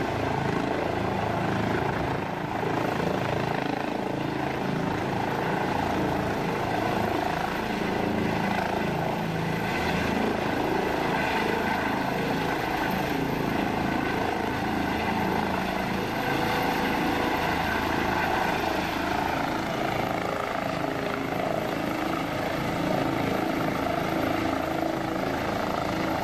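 Air ambulance helicopter's engine and rotor running steadily at close range as it comes in and sets down for a high-altitude mountain landing.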